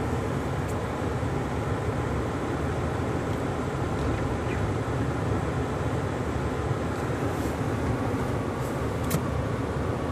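Steady engine and tyre noise heard from inside a truck's cab as it drives slowly along a snow-covered road, with a few faint clicks.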